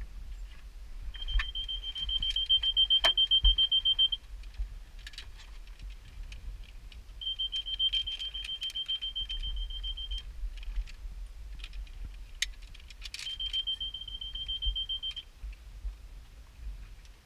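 Electronic warning beeper sounding a high, rapidly pulsed tone in bursts of two to three seconds, three times about six seconds apart, with scattered clicks and knocks between.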